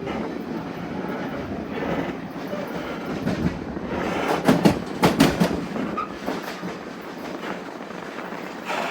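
Narrow-gauge passenger railcar rolling along the track: a steady rumble, with a run of loud wheel clacks over rail joints about four and a half to five and a half seconds in.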